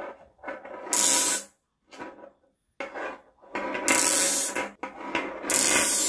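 Pair of oval 'cicada' magnets thrown so they fly together and snap against each other, each toss giving a burst of rapid rattling buzz that sounds like a cicada singing. Four or five such bursts, the loudest about a second in, around four seconds in and near the end.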